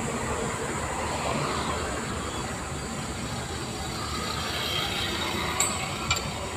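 Steady rumbling background noise with two short metallic clicks about five and a half and six seconds in, from the truck's clutch cover assembly being handled. The first click has a brief high ring.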